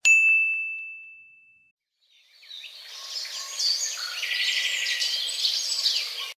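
A single bright bell-like ding that rings out and fades over about a second and a half. About two seconds in, birds chirping over a steady outdoor hiss fade in and run until an abrupt cut.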